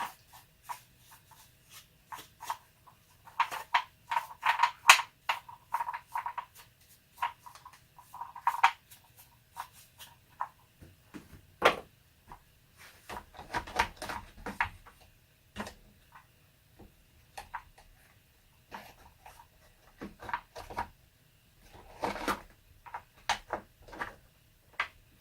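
Irregular metallic clicks, clinks and knocks as a chainsaw's bar and chain are handled and worked by hand, with a run of louder clinking about four to five seconds in.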